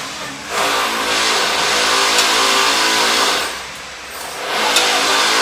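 Chicken pieces and broth sizzling loudly as they are ladled into a hot wok. The sizzle eases about four seconds in, then swells again as more goes in, with a couple of light clicks of the metal ladle against the wok and a steady hum underneath.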